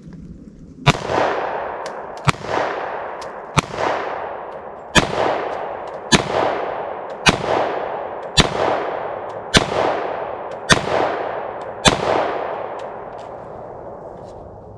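Glock pistol in a CAA Micro Conversion Kit carbine chassis firing ten shots in a steady string, about one shot every second and a quarter, each shot followed by a long echo.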